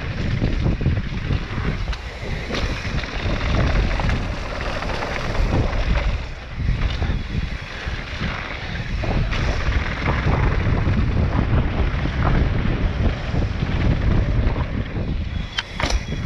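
Wind rushing over the camera microphone and tyres rattling over loose gravel as a mountain bike descends a rough dirt trail at speed, with a few sharper clacks of the bike jolting near the end.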